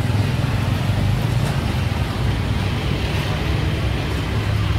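Steady street traffic, motor vehicles running close by with a constant low hum.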